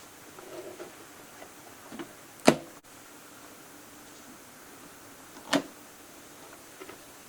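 Two sharp knocks, the first louder, about three seconds apart, over faint handling rustles.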